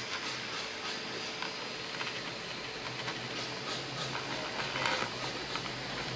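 A small homemade CNC machine driven by an Arduino Mega running: a steady motor hiss with a faint constant tone underneath and frequent short clicks and ticks.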